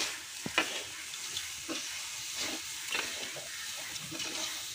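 Metal spoon scraping and stirring grated coconut and sugar in an iron kadhai over a fire: irregular scrapes over a light sizzle as the filling cooks.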